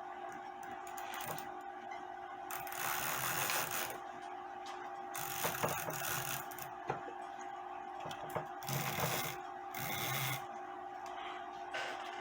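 Handling noises from setting up a cuckoo clock movement on a wooden stand: intermittent rubbing, scraping and small clicks, in several short spells, over a steady low hum.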